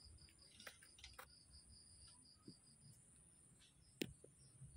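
Near silence with a faint insect chirping in a quick, even rhythm of about five pulses a second, fading after a second or so. There is a single sharp click about four seconds in.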